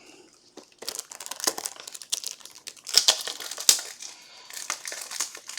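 Crinkling and crackling of plastic packaging being handled and opened, irregular and starting about a second in; a new pack of card holders is being opened to fit a thick patch card.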